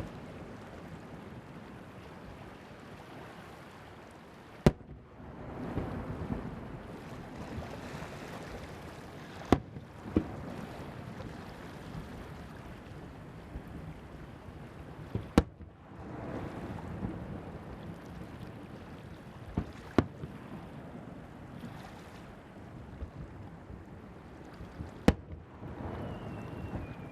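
Fireworks shells bursting over the sea: sharp booms every few seconds, about seven in all, some in close pairs, with a rumbling wash of surf and wind between them. A faint falling whistle comes near the end.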